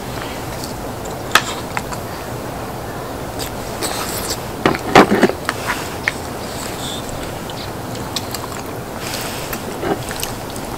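Eating sounds: scattered clicks of utensils and chewing, with a louder burst of eating noise about five seconds in, over a steady background noise.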